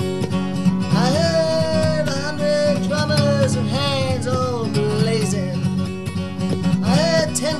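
A man singing a folk ballad over strummed acoustic guitar, with long held, wavering sung notes from about a second in and again near the end.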